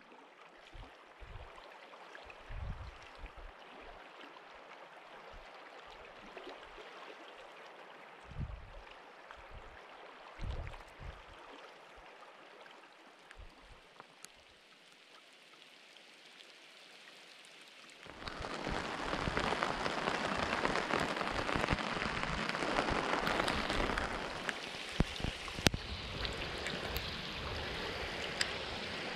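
Rain falling: a faint steady patter at first, then from about eighteen seconds in much louder and heavier, with individual drops ticking sharply on a surface.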